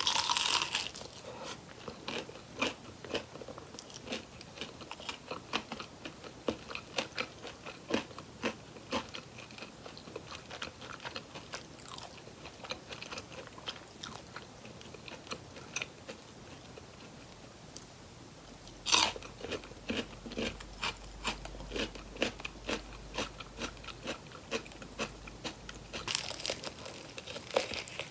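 Close-up eating sounds of crispy fried chicken drumsticks: bites that crunch through the coating, followed by crackly chewing. The loudest bites come right at the start, about two-thirds of the way through and near the end, with softer chewing in between.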